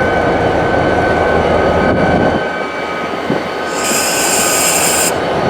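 Freight train rolling past, a steady low rumble with a thin steady high tone over it. The rumble eases off about halfway through. Near the end a sharp hiss lasts about a second.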